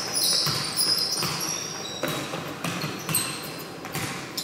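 A basketball bouncing on a hard indoor court, a thud roughly every half-second to second, with high sneaker squeaks near the start and again about three seconds in.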